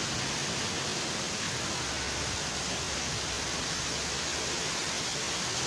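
Heavy rain: a steady, even hiss that does not change.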